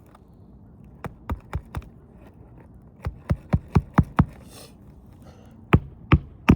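Sharp knocks in quick runs, about four a second: four about a second in, six more around three to four seconds in, and three near the end.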